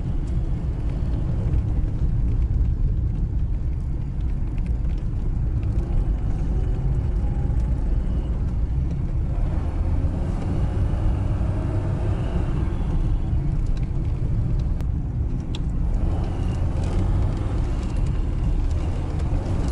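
VAZ 2106 (Zhiguli) four-cylinder engine and road noise heard from inside the cabin, a steady low rumble while the car is driven in third gear.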